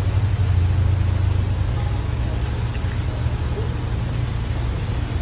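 Chicken pieces deep-frying in a large iron wok of bubbling oil: a steady hiss over a constant low rumble.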